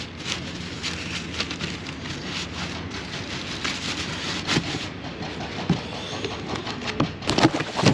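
Rustling and knocking from handling boxed car wheels, scattered clicks throughout and a few sharper knocks about seven seconds in, over a steady background rumble.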